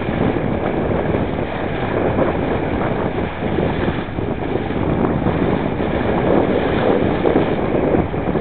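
Steady wind noise buffeting the microphone over the rush and splash of water along the hull of a Laser sailing dinghy under way.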